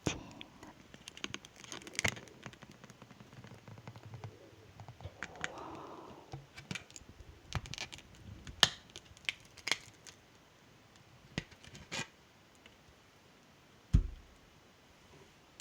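Close-miked mouth sounds: sparse wet clicks and smacks, with a soft rustle a few seconds in and a dull thump near the end.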